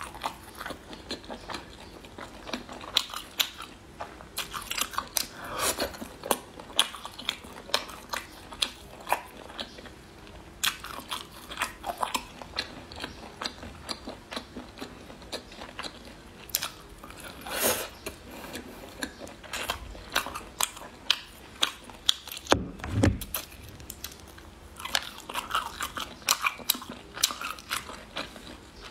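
Close-miked chewing and biting of food: irregular crisp clicks and wet mouth sounds as a person eats. A dull low thump sounds about two-thirds through.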